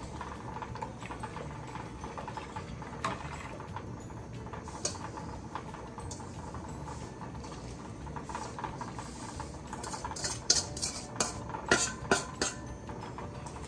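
A spoon scraping granulated sugar out of a stainless steel mixing bowl into a stockpot of juice, with stirring. Near the end the spoon clinks sharply against the metal bowl five or six times in quick succession, the loudest sounds here.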